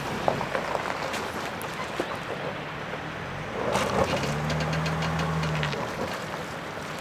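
Mercedes-Benz GLE 350d's V6 diesel engine running as the SUV crawls over rough gravel, with stones crackling and popping under the tyres. A steady low hum comes in about four seconds in and stops about a second and a half later.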